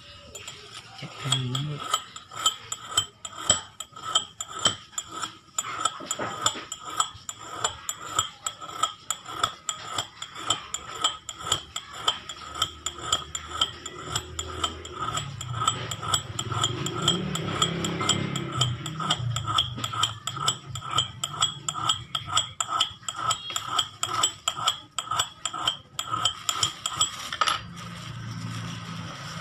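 A cup-shaped black copper (bronze) object being tapped rapidly with a thin metal rod, several strikes a second, each strike ringing with the metal's own clear high tones, as a test of the metal. The tapping stops shortly before the end.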